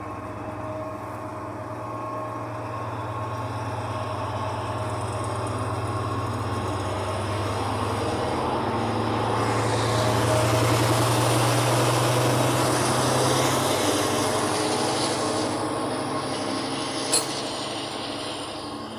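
Class 70 diesel locomotive hauling a container train past: its engine runs with a steady low hum that grows louder to a peak about halfway through, then gives way to the rolling noise of the container wagons, with one sharp click near the end.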